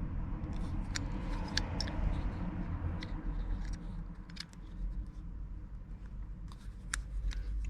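Sharp, irregular small plastic clicks and scrapes as an opened car key fob and its CR2032 coin-cell battery are handled during a battery swap, over a low handling rumble.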